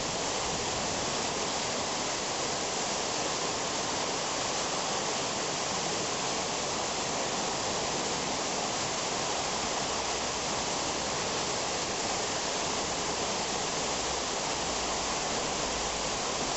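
Whitewater rushing steadily through a weir sluice gate and churning in the standing wave below it.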